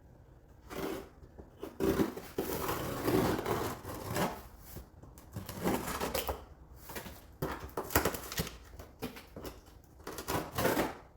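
A cardboard shipping package being opened by hand: irregular rustling, crinkling and scraping of cardboard and packing material, with a few sharp knocks.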